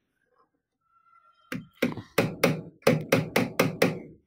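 A quick series of about a dozen metal knocks, roughly four to five a second and each with a short ring, starting about a second and a half in: light hammering taps driving a stuck linear guide bearing block off its rail.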